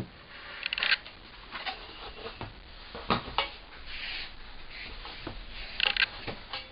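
Handling noise from unpacking a kit: rustling packaging with a string of light clacks and knocks as parts are picked up and set down.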